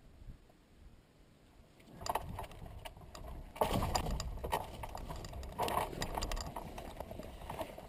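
Hang glider landing on dry grass: from about two seconds in, irregular rustling footsteps through the grass and clattering rattles from the glider's frame as the landing is run out.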